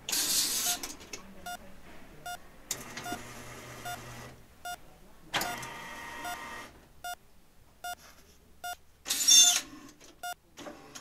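Short electronic beeps in the manner of a hospital patient monitor, repeating about twice a second. Several bursts of hissing noise break in over them; the loudest, about nine seconds in, carries high squeaky tones.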